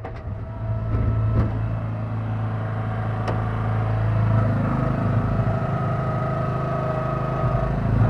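Kellfri mini backhoe running steadily, heard from its cab, with a couple of sharp clicks in the first few seconds. About four and a half seconds in the sound grows fuller and louder as the hydraulics work the bucket in the ground.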